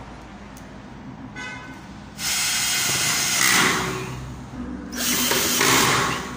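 Cordless drill with a Phillips bit driving screws into galvanized steel metal studs, in two runs: the first about two seconds, the second a little over one. The screws are used in place of rivets to join the stud frame.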